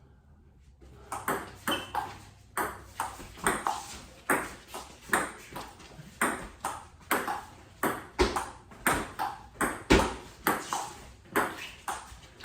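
Table tennis ball knocked back and forth in a long rally: quick clicks of the ball off the paddles and the table, about two to three a second, starting about a second in.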